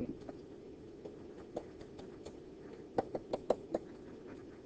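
Stylus tapping and scraping on a tablet screen during handwriting: scattered light clicks, with a quick run of four or five about three seconds in, over a steady low background hiss.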